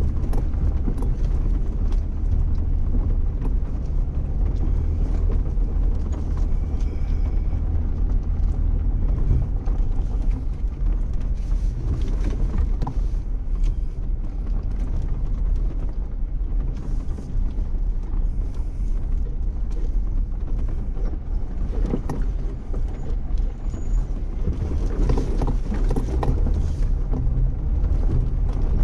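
Jeep driving slowly over a rough dirt trail: a steady low engine drone with tyre and road noise, and a few brief knocks and rattles as it goes over bumps.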